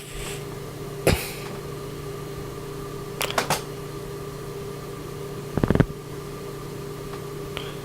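Plastic keyboard keycaps being handled and tapped, giving scattered sharp clicks, with a quick run of clicks near the six-second mark. A steady electrical hum runs underneath.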